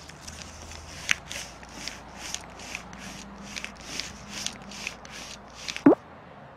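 Paper banknote crinkling and rustling in short, even bursts, about two to three a second, as the note creeps along. Near the end a quick, loud tone slides sharply down in pitch.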